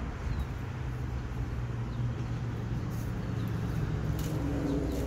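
Outdoor ambience: a steady low rumble of road traffic, with a few faint bird chirps.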